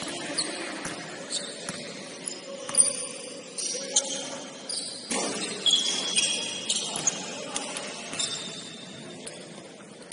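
Basketball game on a gym court: short high squeaks and clicks from play, with faint voices.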